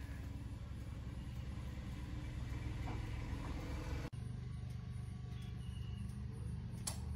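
Petrol dispenser's pump motor humming steadily while fuel is pumped into a motorcycle tank, with a brief dropout about four seconds in.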